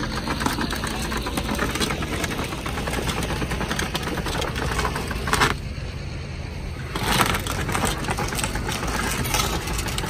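An engine idling steadily with a rapid mechanical clatter, like a diesel truck left running.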